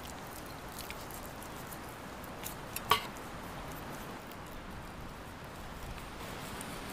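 Knife trimming skin from a raw chicken breast on a wooden cutting board: soft wet squishing and small clicks over a steady hiss, with one sharp click about three seconds in.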